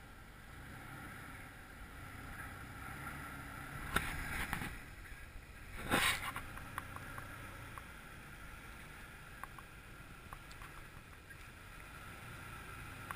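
Jeep Wrangler engine running at low revs as it crawls slowly up over slickrock, a steady low rumble. Two sharp knocks stand out, about four and six seconds in.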